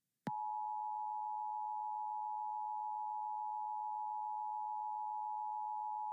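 Emergency Alert System attention tone: one steady, unchanging alert tone that starts with a click about a quarter second in. It signals that an emergency warning, here a severe thunderstorm warning, is about to be read.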